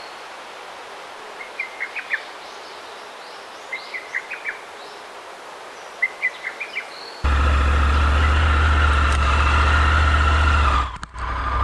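A bird calls three times over quiet outdoor background, each call a quick run of high chirps. About seven seconds in, the sound cuts abruptly to a loud, steady rumble of motorcycle riding noise with a low hum, which briefly drops out near the end.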